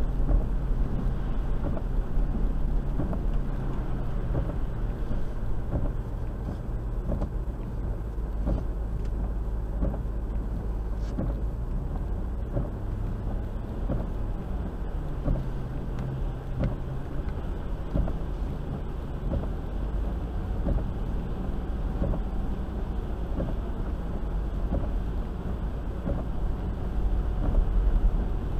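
A Land Rover's engine and tyre noise heard from inside the cabin as it drives through flooded streets, a steady low rumble. Near the end it grows louder as the wheels plough through deeper floodwater and throw up spray.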